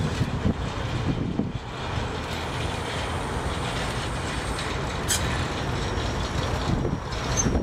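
Diesel shunting locomotives running slowly into a station platform with coaches in tow, engines running steadily. A single sharp click comes about five seconds in.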